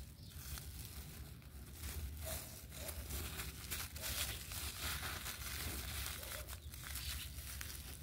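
Plastic cling film crinkling and crackling irregularly as hands fold and crumple it around a small circuit board, over a low steady rumble.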